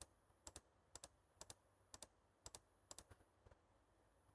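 Keys on a Sony Vaio E series laptop keyboard tapped over and over, about twice a second. Each tap is a light double click of press and release, as the user flicks between open browser tabs.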